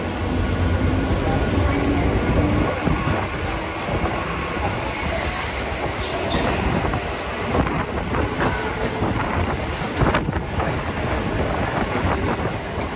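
Two suburban electric local trains running alongside each other, heard from the open doorway of one: a steady rumble and rattle of steel wheels on rail, with sharp clicks over rail joints later on and wind on the microphone.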